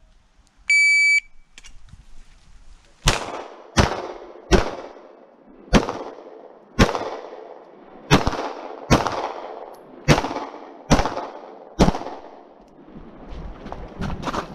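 An IPSC shot timer gives its start beep, a single steady tone about half a second long. Then a Glock 34 9mm pistol fires ten shots at a steady pace of about one a second, each with a short trailing echo. Near the end there is a pause of about two seconds with faint clicks, and another shot comes right at the end.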